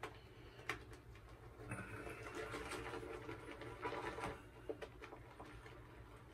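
Boar-bristle shaving brush working soap into lather in a scuttle: a faint, soft swishing for a couple of seconds in the middle, with a few light clicks around it, as water just added is worked into the lather.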